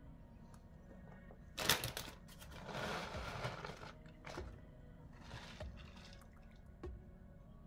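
A plastic bag of grated cheese crinkling and rustling as it is handled, with a sharp rustle a little under two seconds in, a longer stretch of crinkling after it, and a few softer rustles later.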